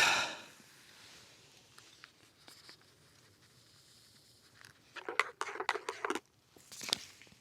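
Camping cooking kit and a metal cup being handled while making coffee. A sharp knock rings out at the start and dies away, and about five seconds in comes a quick flurry of knocks and scrapes, with one more near the end.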